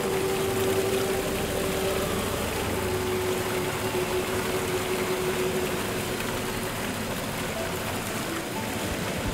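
A steady rushing hiss, like rain, under a single held low note that fades away about seven seconds in.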